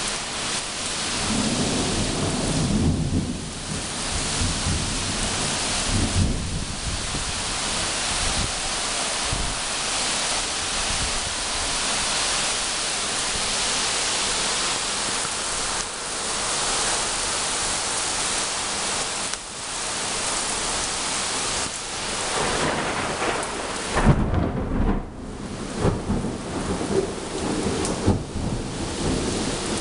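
Thunderstorm: steady rain pouring down, with thunder rumbling a couple of times in the first several seconds and a louder clap of thunder about four-fifths of the way through, the loudest moment.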